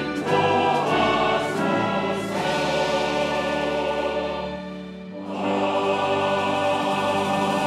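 Large mixed church choir singing a hymn with orchestral accompaniment, holding long chords; the sound dips briefly about five seconds in, then swells again on a sustained chord.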